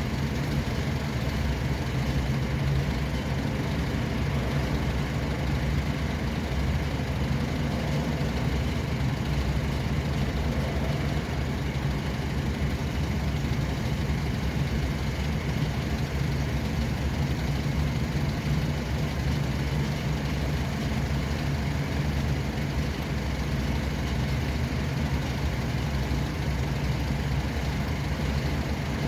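Steady road-vehicle engine hum and road noise, unbroken and even, with no horns or other sudden sounds.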